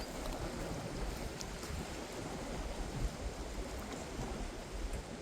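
Strong wind blowing across the microphone, a steady low rumble, over choppy water washing against a rocky shore.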